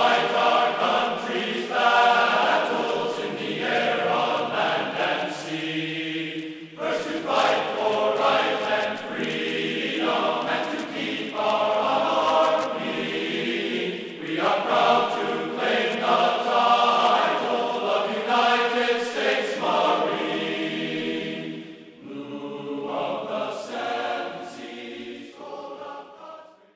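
Background music of a choir singing held phrases, fading out at the very end.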